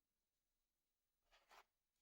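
Near silence, with two faint short rustles close together about one and a half seconds in.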